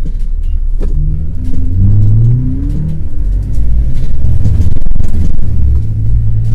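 Off-road SUV engine accelerating over a sandy dirt track, over a heavy low rumble; the engine note climbs between about one and three seconds in, then settles back.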